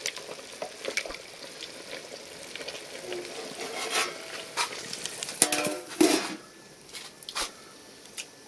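Chicken soup boiling hard in an open metal pot, stirred and scraped with a wooden spoon, with light clicks. About five and a half seconds in come a few louder metallic clanks with a short ring, the pot lid going back on.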